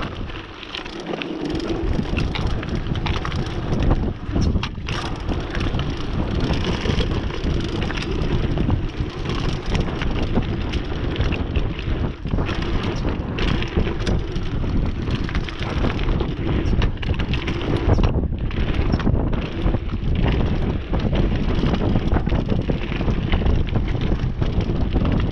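Mountain bike riding fast down a loose gravel trail: tyres crunching on the gravel and the bike rattling over the bumps, with heavy wind buffeting on the camera's microphone.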